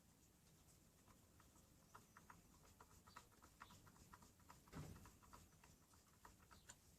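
Faint, irregular small ticks and clicks of the screws that hold a circular saw's dust port being driven in by hand, with one soft knock about five seconds in.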